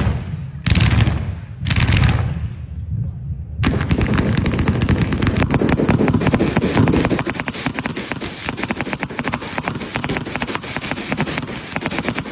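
Firecrackers going off in rapid strings of bangs: first a few short bursts about a second apart, then from about three and a half seconds in a continuous fast crackle of many small bangs, like a long firecracker chain burning through.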